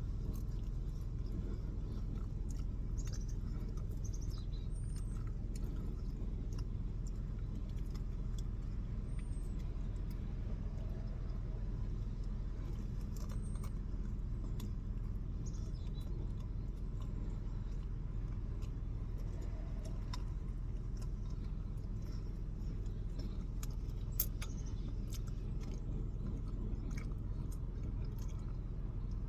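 Steady low rumble, like a running vehicle, with a few faint high bird chirps in the first half and scattered small clicks, one sharper about three-quarters of the way through.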